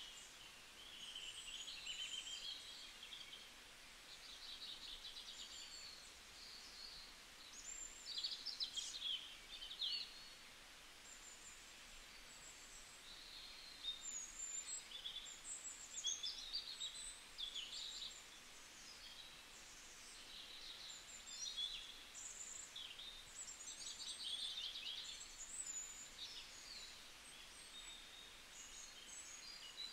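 Birdsong: a steady run of high chirps and quick trills, one phrase after another, over a faint background hiss.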